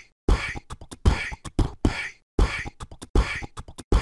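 A repeating percussive beat of deep kick-drum thumps and sharp snare-like hits, cycling about every two seconds: closing music.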